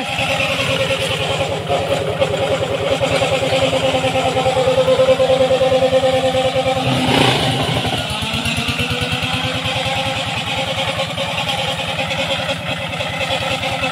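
Engine of a two-wheel walking-tractor grass slasher running steadily under load as it cuts through grass and brush, with an even firing beat. The engine note briefly changes about halfway through, then settles.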